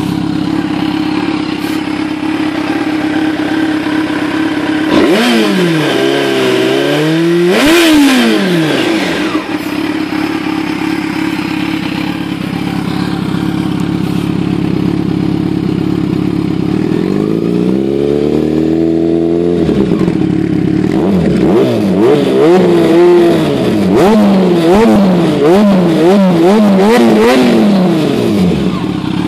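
Yamaha FZ6 Fazer's inline-four engine through a LeoVince LV One Evo II exhaust with the dB-killer fitted, idling and revved. There are two blips about five and seven seconds in, a longer rise and fall around eighteen seconds, then a run of quick blips near the end.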